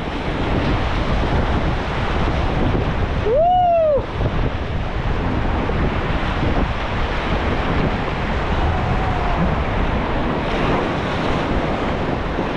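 White-water rapid rushing and splashing, with wind buffeting the microphone. One short rising-and-falling shout about three and a half seconds in.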